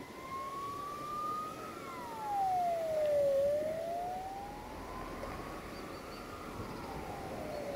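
A wailing siren, its pitch sliding slowly up and down twice, each rise and fall taking several seconds.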